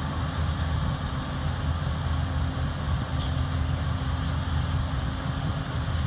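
Corn forage-harvesting machinery running steadily: a deep, even engine drone with a constant hum, and a brief high squeak about three seconds in.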